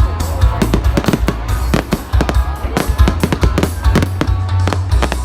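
Fireworks going off: many sharp bangs and crackles in quick, irregular succession, over music with a heavy bass.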